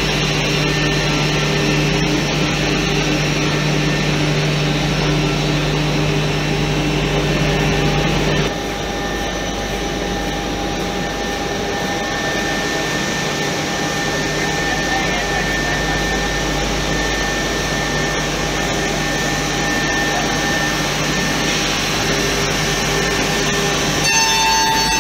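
CNC edge-banding machine running with its dust extraction: a continuous whir with a few steady tones. The sound changes abruptly about eight seconds in and again near the end.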